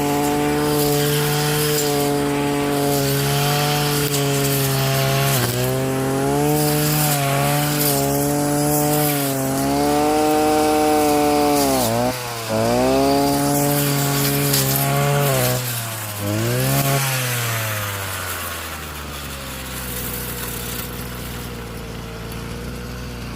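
Petrol weed whacker (brush cutter) fitted with a metal saw blade, running at high revs and cutting wood. Its engine pitch dips sharply several times as the blade bites and loads it. Near the end it drops to a lower, quieter, steady speed.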